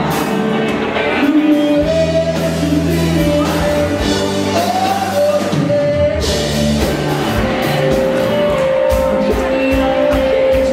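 Indie rock band playing live, with singing over electric guitars and drums. From about halfway a long note is held steady over a regular drum beat.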